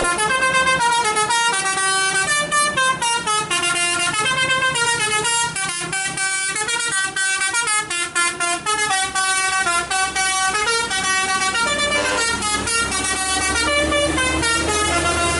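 A bus's musical air horn (a 'telolet' horn) playing a quick tune of stepping notes, up and down, over and over. From about two-thirds of the way in, the bus's engine is heard underneath, rising slowly in pitch.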